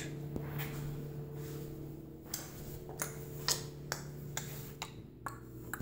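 Footsteps on a hardwood floor: light, sharp clicks about two or three times a second over a steady low electrical hum.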